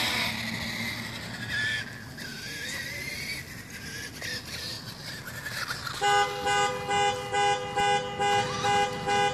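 A loud horn-like tone sounding in short, evenly spaced blasts about twice a second, starting about six seconds in. Before it, a fainter wavering whine over a steady hiss.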